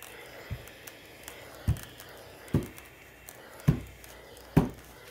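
Black+Decker steam iron pressing a folded fabric hem on a tabletop, with five dull thumps, about one a second, as it is set down and pushed onto the fabric.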